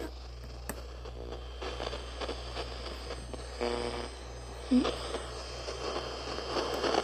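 General Electric clock radio giving a steady low hum and a hiss of static between stations, the hiss growing toward the end, with a brief buzzy tone a little past halfway. Clicks and scrapes come from the set being handled.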